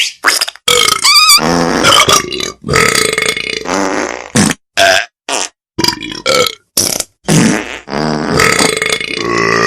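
A comic ringtone made of a voice doing a string of burp-like vocal noises in short loud bursts with brief gaps, some with a wavering, warbling pitch.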